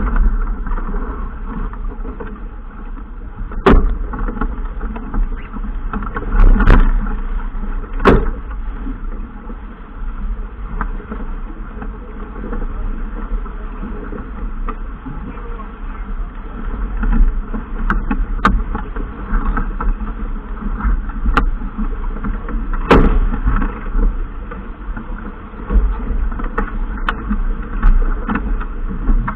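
Steady wind and water noise aboard a racing yacht under sail, heavy low rumble of wind on the microphone, with a few sharp knocks.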